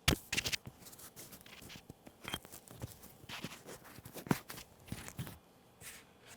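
Handling noise of small gear: a scatter of light, irregular clicks and rustles, as the wireless mic pieces are picked up and moved about.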